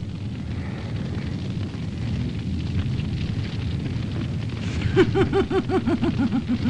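Cartoon fire and explosion sound effect: a blaze burning with a steady low rumble. About five seconds in, a voice breaks into a quick, repeated laugh that falls slightly in pitch.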